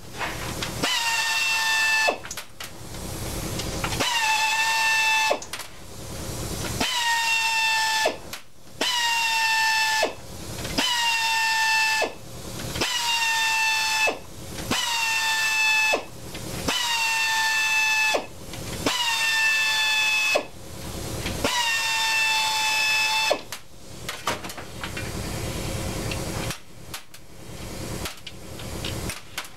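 Handheld pneumatic tool on an air hose running in short bursts, one every second or two, each a high whine that dips slightly in pitch and then holds, with air hiss, as it runs out screws on an outboard powerhead. Near the end the bursts give way to rougher hiss without the whine.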